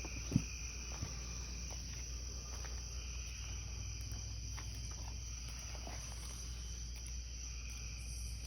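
Steady high-pitched insect chorus, with a low steady hum beneath it and a single short knock about half a second in.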